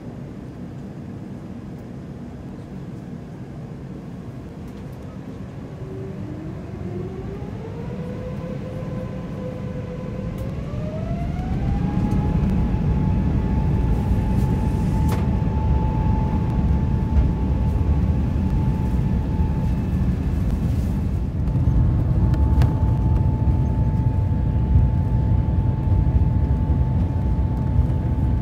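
Airbus A350-900's Rolls-Royce Trent XWB engines spooling up to takeoff thrust, heard from inside the cabin. A whine rises in two steps over about six seconds, then holds as a steady high tone over a growing low rumble as the takeoff roll begins.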